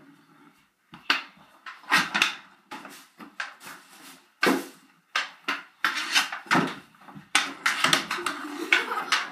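Hockey sticks slapping a ball and the concrete floor and clacking against each other during floor hockey: irregular sharp knocks that come faster in the second half.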